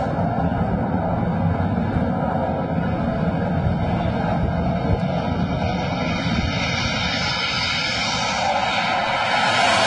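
Fighter jet's engine noise as it approaches low over an aircraft carrier's deck: a steady rushing roar that grows brighter and a little louder over the last few seconds as the jet closes in.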